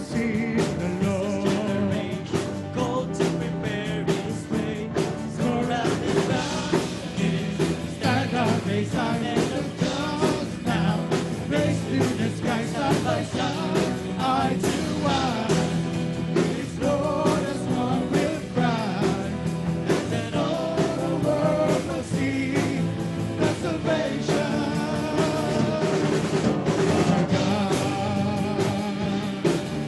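A live worship band playing a song on bass guitar and acoustic and electric guitars, with a male lead vocalist singing into a microphone.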